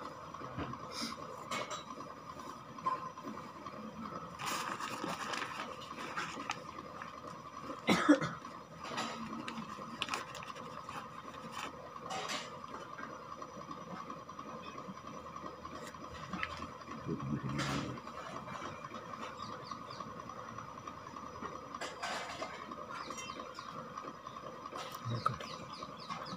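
Hand-work noises against a plastered wall: scattered rustling and scraping, with a crumpled paper packet crinkling now and then, and one sharp click about eight seconds in. A steady high-pitched hum runs underneath.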